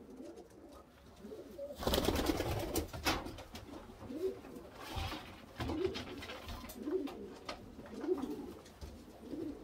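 Domestic pigeons cooing, a low rising-and-falling coo repeating about once a second. A loud rustle about two seconds in lasts about a second.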